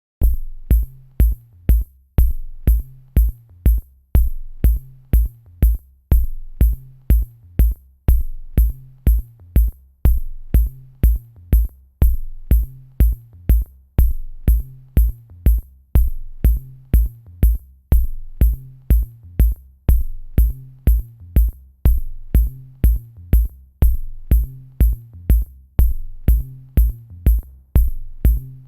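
Electronic background music with a steady drum-machine beat and a low bass line.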